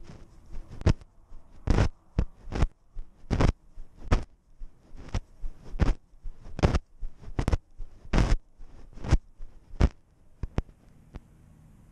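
Regular sharp thuds, about one or two a second, from a GoPro worn on a cat, jolting with each step as the cat walks over dry grass. They give way to a few light clicks about ten seconds in, then stop.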